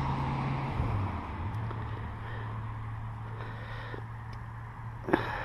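Steady motorway traffic noise, with a vehicle's low engine hum that drops slightly in pitch about a second in. A single short knock comes near the end.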